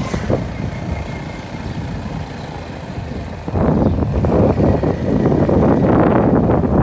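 Road noise from a moving vehicle: engine running under a rush of wind and rumble, growing louder about halfway through.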